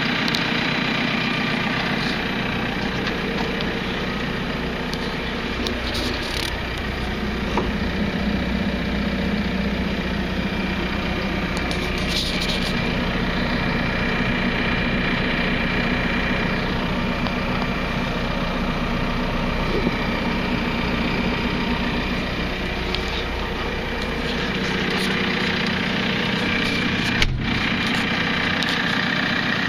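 JCB 527-58 Agri Plus telehandler's diesel engine idling steadily, with one sharp click near the end.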